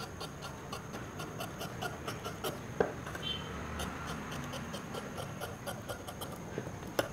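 Large tailoring shears cutting through two layers of folded cloth: a run of small, crisp snips and blade clicks at an uneven pace. A louder click comes about three seconds in and another near the end.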